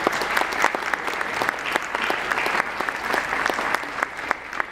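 Audience applauding, with many hands clapping in a dense patter that thins out near the end.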